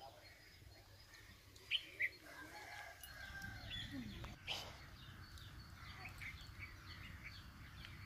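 Chickens clucking with a rooster crowing in the background, faint overall; two short sharp calls close together about two seconds in are the loudest sounds.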